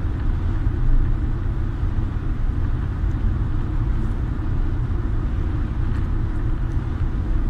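Car driving at a steady speed: an even, low rumble of engine and road noise.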